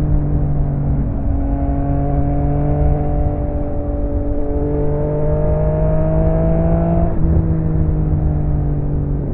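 Yamaha XSR900's inline-three engine running through an aftermarket M4 exhaust while riding, its note climbing slowly as the bike accelerates, then dropping briefly about seven seconds in before holding steady, over a low rumble.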